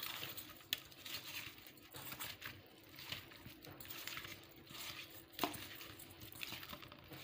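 Bare hand mixing oiled, spice-coated raw mango pieces in a steel bowl: faint, irregular rustling and squishing as the pieces are turned, with a couple of sharp clicks against the bowl.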